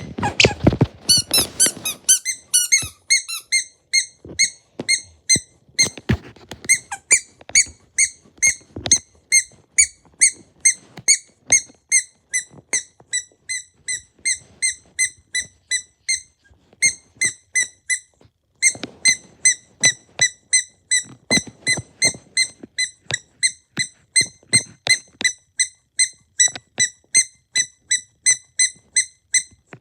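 A short, high-pitched squeak repeated over and over at a steady pace of about three a second, with a brief pause partway through.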